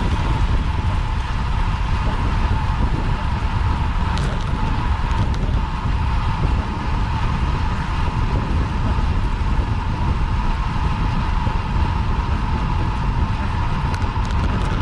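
Wind rushing over a bicycle-mounted action camera's microphone as a road bike is ridden at race speed: a loud, steady low rumble with a steady mid-pitched hum over it.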